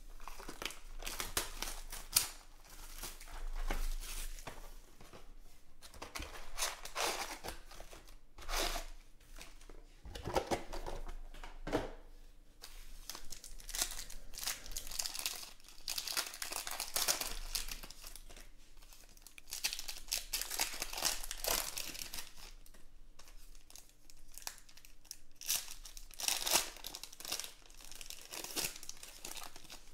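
Foil wrappers of Panini Contenders football card packs crinkling and tearing as they are ripped open by hand, in irregular bursts of crackle.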